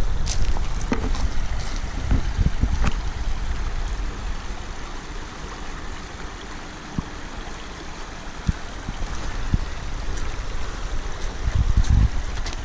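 Steady rush of a shallow river running over a gravel bar, with wind gusting on the microphone near the start and again near the end. A few sharp clicks stand out in the middle.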